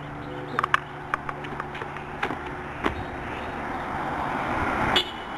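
A passing car on the road, its tyre and engine noise growing steadily louder over the last few seconds as it approaches; no horn sounds. A steady low hum and a few light clicks come before it.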